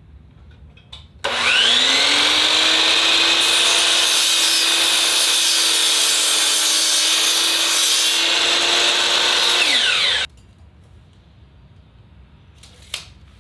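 DeWalt sliding miter saw motor starting with a rising whine, running loud and steady for about nine seconds while cutting a length of aluminum extrusion, then winding down quickly when released.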